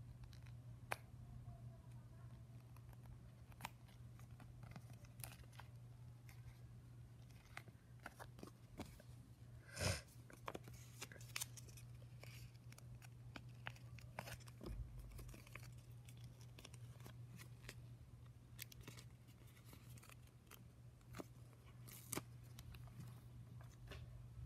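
Near silence over a steady low hum, broken by scattered faint clicks and paper rustles, with one louder rustle about ten seconds in: paper and stickers being handled.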